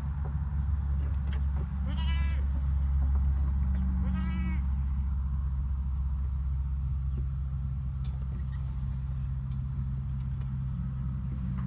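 Two wavering bleats from a goat or sheep, about two and four seconds in, over a steady low machine hum.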